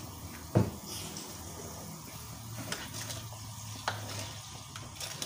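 Sauce simmering and sizzling in a wok while a spatula stirs it, with one sharp knock of the utensil on the pan about half a second in and a few lighter clicks later.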